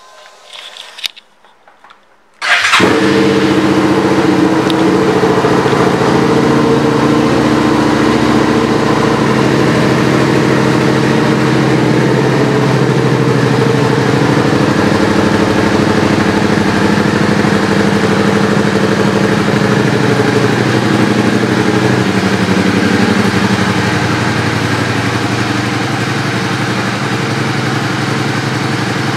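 Suzuki SV650X's 645 cc V-twin engine starting up suddenly about two and a half seconds in, then idling steadily through its aftermarket exhaust. The idle gets a little quieter about twenty seconds in.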